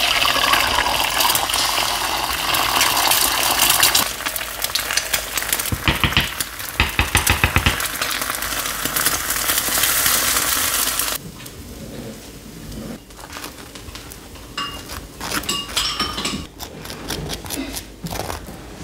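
Eggs sizzling as they fry in a two-compartment non-stick egg pan, with a run of sharp knocks and clicks about six to eight seconds in. The sizzling cuts off suddenly about eleven seconds in, followed by quieter light scraping and clicks of sauce being spread on a bun.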